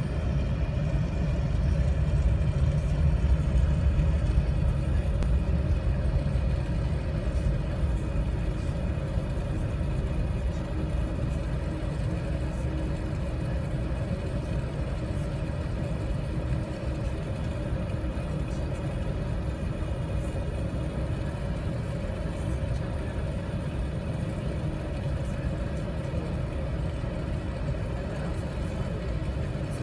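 Airbus A380 cabin noise heard from the upper deck: a steady low rumble of the engines and airflow with a faint steady hum above it, a little louder in the first few seconds.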